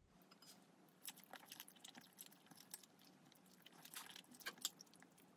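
Faint close-up mouth sounds of someone slurping and chewing noodles: a scatter of small wet clicks, loudest about four seconds in.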